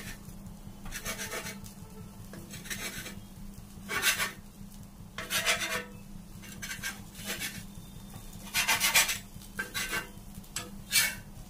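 Steel spatula scraping and chopping against a flat griddle (tawa) as it cuts through a bread omelette, in a series of short rasping strokes, the loudest about four and nine seconds in.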